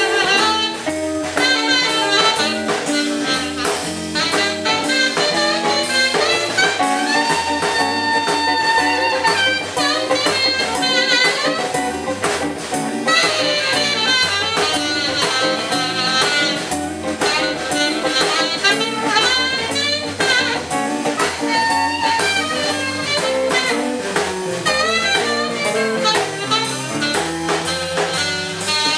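Live blues band playing, led by a saxophone over electric guitar, electric bass and drums, with a long held saxophone note about seven seconds in.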